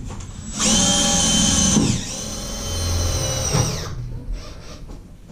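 Cordless drill driving a screw as a wall panel is fastened: a high motor whine in two runs, a short burst then a longer one that winds down about four seconds in.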